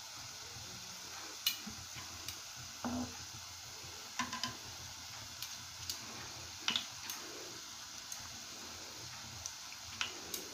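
Jalebi batter frying in shallow hot ghee: a steady sizzle broken by scattered sharp pops and crackles at irregular moments. The spirals are still wet, frying towards crispness before being turned.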